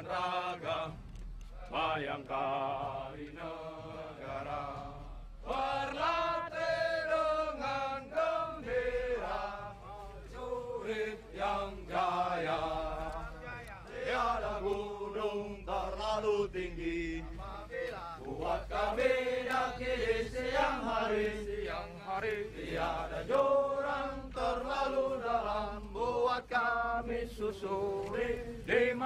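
A group of male soldiers chanting a marching song in unison, in long sung phrases with only brief pauses.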